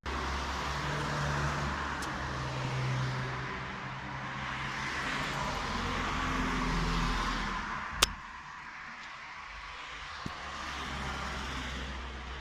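Street traffic: motor vehicles passing, a steady rush that swells and fades with a low engine hum, and one sharp click about eight seconds in.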